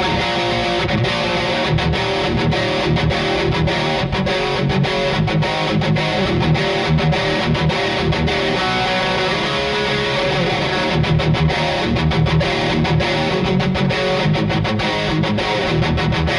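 Schecter ZV Custom reissue electric guitar played with a distorted tone, continuous riffs and chords with heavy low notes.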